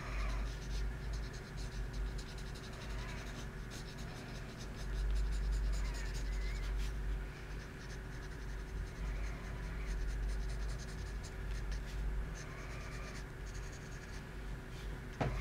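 Graphite pencil scratching on paper in runs of quick, short shading strokes with brief pauses between them, over a steady low hum.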